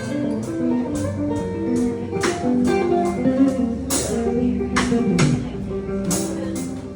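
Live blues band playing an instrumental passage between vocal lines: guitar over upright bass and drums, with several cymbal hits.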